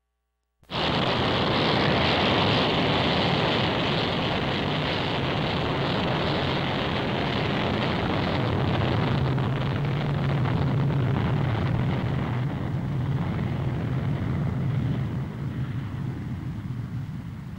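F-111A jet engines in afterburner, a loud steady roar that cuts in suddenly about a second in. A low drone comes up under it about halfway through, and it fades over the last few seconds as the aircraft moves away.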